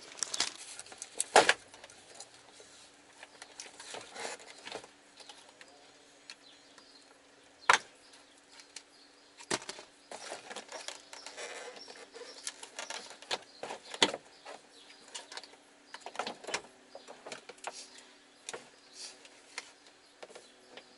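Scattered clicks and knocks of hands working a Honda door handle and its latch cable, with three sharper knocks, about a second and a half, eight and fourteen seconds in, over a faint steady hum.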